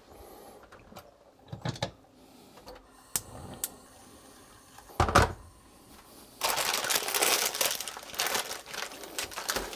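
Plastic instant-noodle packet crinkling loudly as it is torn open and handled, for the last three seconds or so. Before that there are a few soft clicks and one sharp knock about halfway through.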